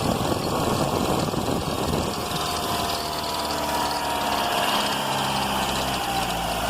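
Car engine idling steadily, with a thin high tone above it slowly falling in pitch. This is the cricket-like noise from the front of the engine that the owner says could be a worn accessory belt, a faulty alternator bearing, or plastic rubbing on the belt.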